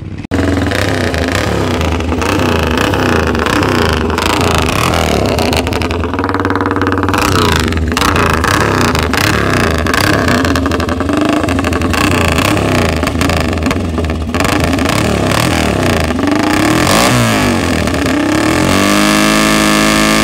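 Vintage racing motorcycle engines running and revving hard, several pitches overlapping; near the end the engine pitch swoops down and climbs again.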